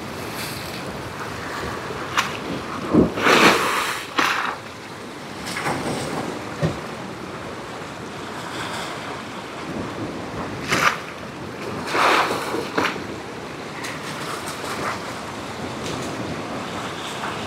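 Rough ocean surf washing and breaking on shoreline rocks, with wind buffeting the microphone. The surf surges loudest twice, about three seconds in and again about twelve seconds in.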